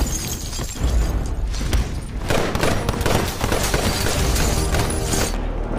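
A film gunfight's sound mix: rapid, repeated handgun shots with glass shattering and a low rumble under them.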